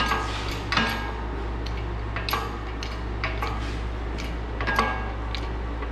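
Pump handle of an Ironton 20-ton bottle jack in a shop press being worked, giving uneven metallic clicks and clanks about twice a second as the jack's ram extends downward.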